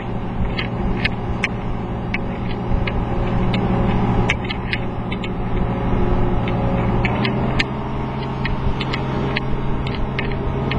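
Boat's diesel engine running steadily under way, with water rushing along the hull and sharp clicks about twice a second.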